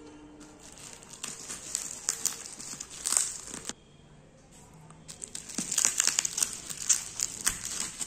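Plastic bubble-wrap packaging crinkling and crackling as hands pull it open, in irregular bursts with a quieter pause about halfway through.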